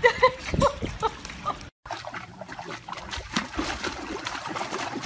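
A puppy giving short whimpering cries while held paddling in pool water. After a sudden break about two seconds in, water splashing and sloshing as a puppy paws and dips at a pool's edge.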